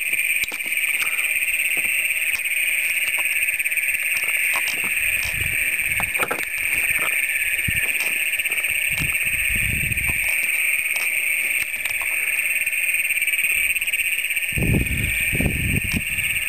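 Chorus of many Great Plains toads calling together: long, shrill trills overlapping into one continuous loud drone. A few low rumbles come in the middle and near the end.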